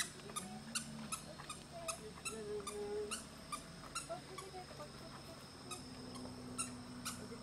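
Outdoor ambience: a steady high-pitched drone with a run of sharp ticks, about three a second, and faint wavering tones low down.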